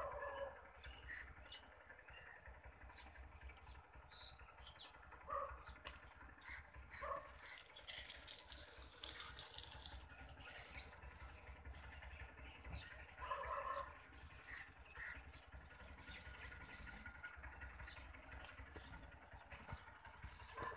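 Faint outdoor ambience of birds chirping in short, scattered calls, with a few lower animal calls and a steady low wind rumble on the microphone.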